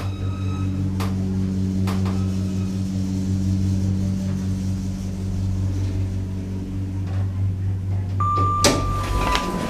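A hydraulic lift's pump motor humming steadily and loudly as the car rises, with two clicks about one and two seconds in. Near the end a held two-step beep sounds as the motor dies away.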